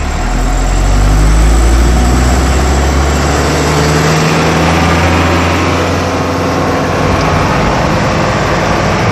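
Heavy truck engine running loud and low, its pitch shifting over the first few seconds before settling into a steady drone.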